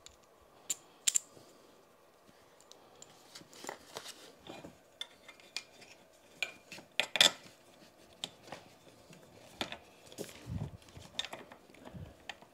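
Metal parts of a bicycle repair stand and hand tools clinking and knocking as they are handled and fitted together, a scattering of irregular sharp clicks with a few duller knocks near the end.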